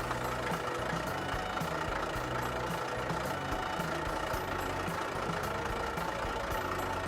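A big truck's diesel-type engine idling steadily, used as a sound effect for a toy truck.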